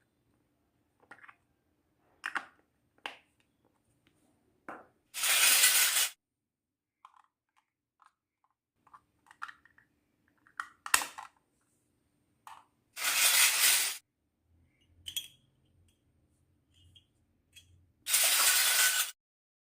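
Small plastic toy kitchen pieces being handled, with light clicks and taps. Three loud, hissing scrapes of about a second each come about five, thirteen and eighteen seconds in.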